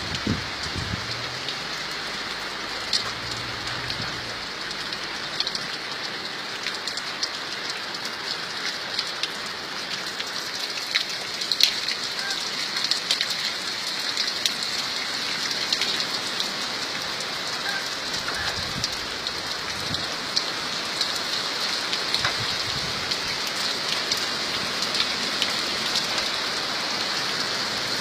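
Steady rain falling, an even hiss scattered with many sharp ticks of individual drops striking a surface.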